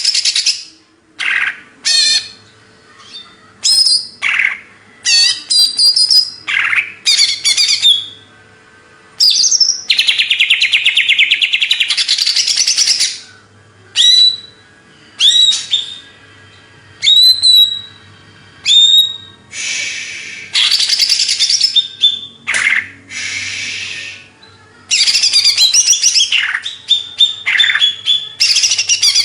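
Greater green leafbird (cucak ijo) singing loudly and continuously: quick whistled phrases with sharply rising and falling notes, broken by long rapid chattering trills of two to three seconds each.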